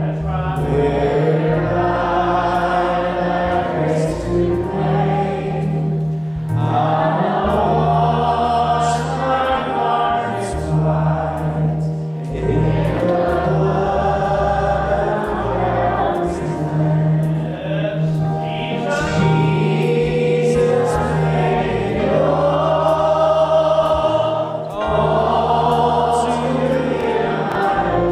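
Church praise team and congregation singing a hymn together, with acoustic guitar accompaniment, in phrases of about six seconds with short breaks between.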